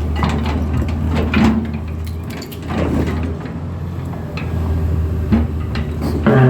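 A heavy machine's engine drones steadily, with scattered knocks and clanks on top.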